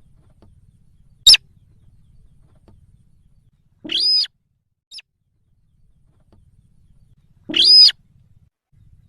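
Recorded lure call of the sintar bird, played back to attract the bird: a sharp, very short high call about a second in, then two longer arched calls, a few seconds apart, with a brief faint note between them. Another short sharp call comes right at the end.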